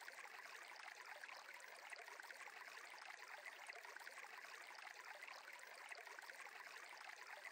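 Near silence, with a faint, steady sound of flowing stream water.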